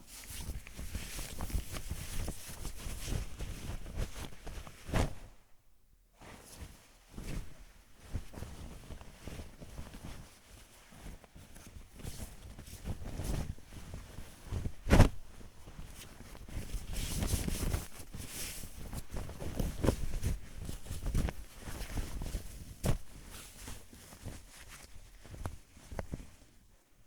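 Cloth foley: fabric rustling and swishing as clothing is moved, as with arm whooshes of a sleeve, in a long run of shuffling strokes. It stops briefly about six seconds in, and the loudest sharp flap or snap of the cloth comes about halfway through.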